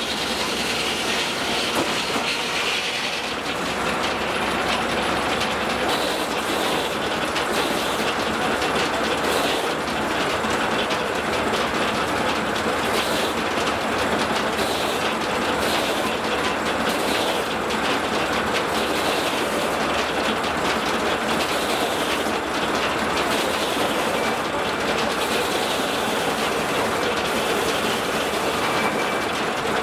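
Steam-powered sawmill machinery running with a steady mechanical clatter.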